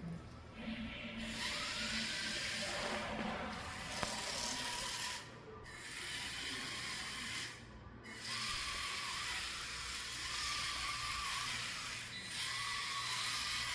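Small DC gear motors of a homemade RC car whirring as it drives, dropping out briefly about five times as the car stops and starts.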